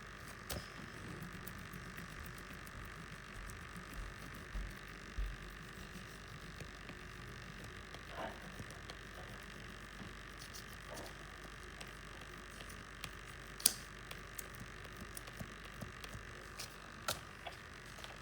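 Scattered light taps and clicks of painting things being handled over a steady faint hiss, with one sharper click about two-thirds of the way through.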